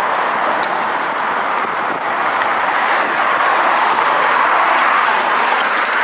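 Steady roar of freeway traffic, mostly tyre noise, close by and unbroken.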